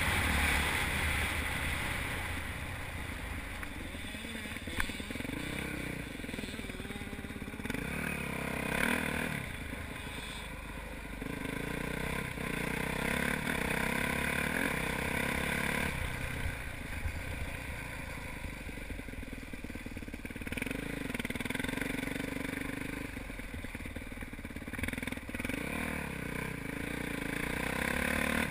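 Dirt bike engine heard from the rider's helmet camera, revving up and easing off again and again through the gears, over a steady rush of wind noise.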